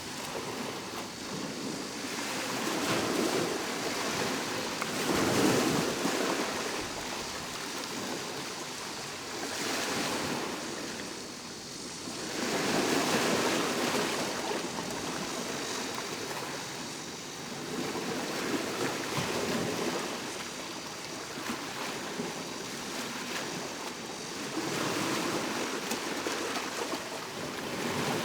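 Ocean waves breaking on the shore, the surf rising and falling in swells every few seconds.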